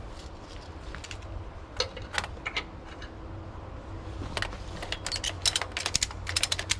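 Light metallic clicks and clinks of hand tools and small steel parts being handled, a few at first, then coming quickly over the last couple of seconds, over a steady low hum.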